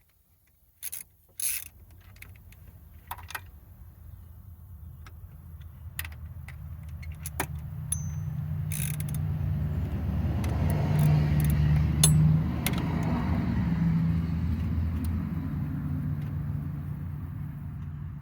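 A motor vehicle passing slowly nearby: its engine noise builds over about ten seconds, then fades away. A few sharp metallic clicks from hand tools come near the start.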